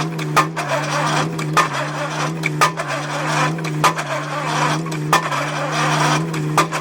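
An excavator-mounted pile-driving hammer striking a foundation pile in a steady rhythm, six sharp blows about 1.2 seconds apart, over the constant drone of the machine's engine.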